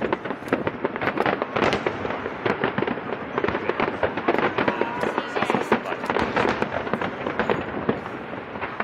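Fireworks display: a dense, unbroken barrage of overlapping bangs, pops and crackles from many shells bursting.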